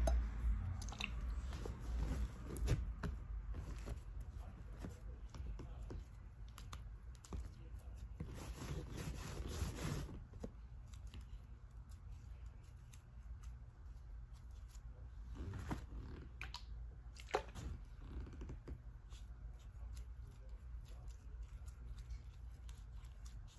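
Hands kneading and pulling sticky homemade slime off the fingers, making irregular small clicks, with a denser, noisier stretch of about two seconds some eight seconds in.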